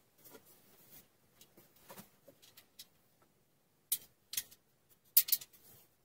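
Woodworking clamps being handled and tightened onto a glued-up MDF rack: a scatter of light clicks and taps, then sharp louder clicks just before 4 s and about half a second later, and a quick cluster of clicks just after 5 s.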